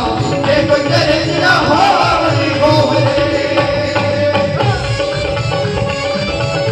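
Live Punjabi devotional music played over loudspeakers: one steady note is held throughout, with tabla-style hand-drum beats beneath it and a wavering melody in the first two seconds.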